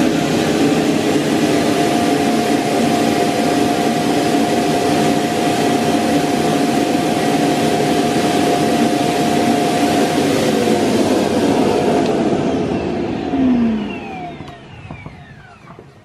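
Lydsto S1 robot vacuum's self-emptying dock running its suction motor, a loud steady whoosh with a whine, sucking the dust out of the robot's bin. About thirteen seconds in it cuts off and winds down with a falling whine.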